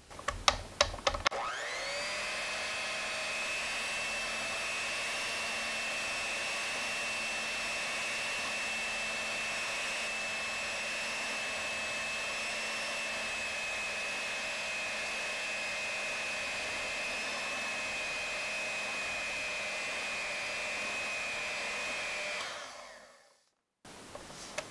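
Electric hand mixer running steadily with a high motor whine, its wire beaters churning chocolate batter in a glass bowl. A few sharp clicks come in the first second before the motor speeds up, and it winds down and stops near the end.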